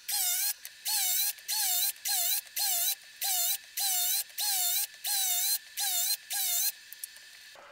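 DeWalt cordless circular saw making a rapid series of about a dozen short kerf cuts through plywood, each a brief burst of motor whine whose pitch dips as the blade bites and rises again as it clears. The bursts stop about a second before the end.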